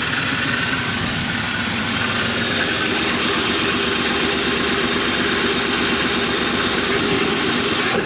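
Ford Mustang engine idling steadily with the hood open. No fuel comes out at the fuel rail's test valve, and the men put it down to the ether sprayed into the engine.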